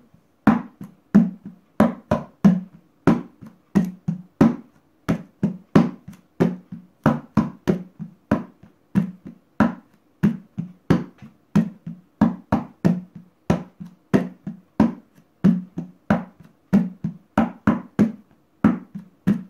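Tumbao rhythm played with bare hands on an upturned, empty plastic trash can used as a conga. Deep thuds from flat-hand strokes in the middle alternate with lighter, sharper, higher strokes in a steady repeating pattern.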